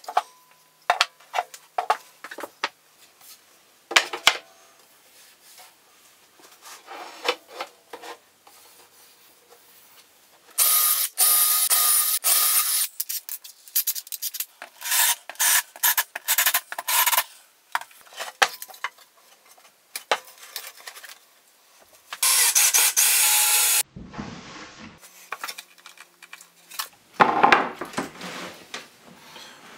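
A cordless drill runs in three bursts of about two seconds each, drilling and countersinking screw holes in a chipboard guide board. Between the bursts, wood and boards knock and scrape against the table saw's metal top as they are handled.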